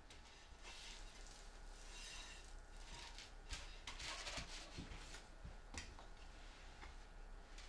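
Faint handling noise: plywood boards being set down and slid across a foam board, with a few light knocks and rubbing scrapes in the middle.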